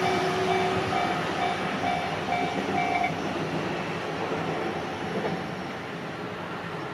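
Japanese level-crossing warning bell ringing in a steady ding-ding about twice a second over a passing train, which fades away. The bell stops about three seconds in as the crossing clears.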